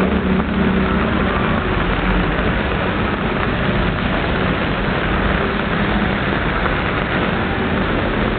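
Street noise in heavy rain: a steady hiss of rain and traffic on the wet road, with a low vehicle-engine hum that fades out about half a second in.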